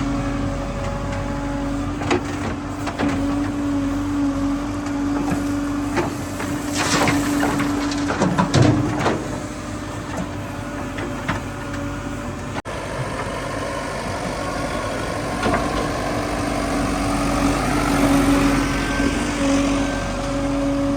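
Heavy diesel vehicle engine running steadily, with scattered knocks and clanks in the middle stretch.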